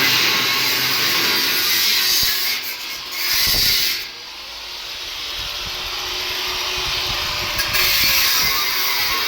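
Metalwork noise: a harsh, steady hiss with crackle. It dips briefly, drops away sharply about four seconds in, then builds back up over the next few seconds.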